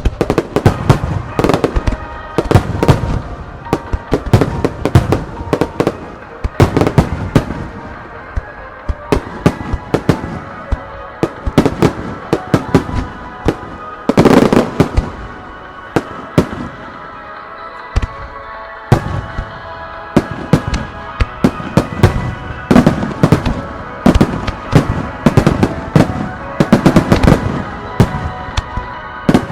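Starmine fireworks barrage: aerial shells bursting in rapid, overlapping succession with sharp cracks and deeper booms, the biggest boom about halfway through. The bursts thin out for a few seconds before picking up again densely, with music playing underneath.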